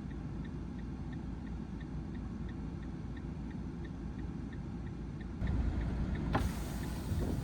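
Steady low vehicle rumble with faint regular ticking, about two or three ticks a second. About two thirds of the way through a louder rush of noise builds, like a vehicle passing.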